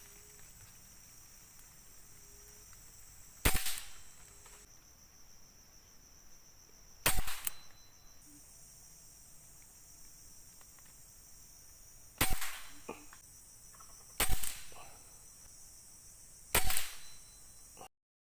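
Five air rifle shots, sharp cracks a few seconds apart, each with a short tail. A steady high buzz of insects runs underneath, and the sound cuts off suddenly near the end.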